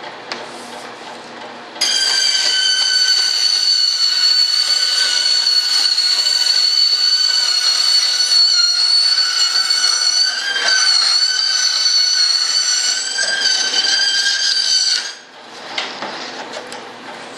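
Band saw cutting through a sheet of thin plywood, giving a loud, steady high-pitched whine. The whine starts suddenly about two seconds in and stops abruptly about fifteen seconds in.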